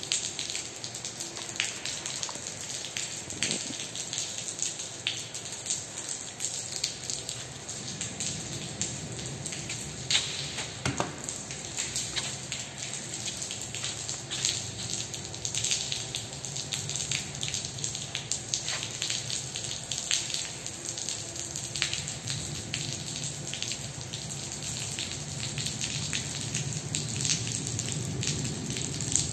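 Rainwater leaking into an underground car park, splashing and dripping onto the flooded concrete floor: a steady wash of water with many sharp drops falling through it.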